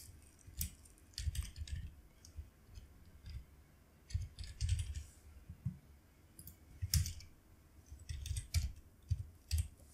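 Computer keyboard typing in short, irregular bursts of keystrokes with pauses between them.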